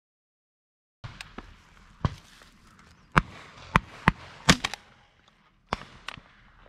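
Shotgun shots at a passing flock of doves: a volley of sharp reports, the loudest five in quick succession over about two and a half seconds, with fainter, more distant shots around them. The first second is dead silent.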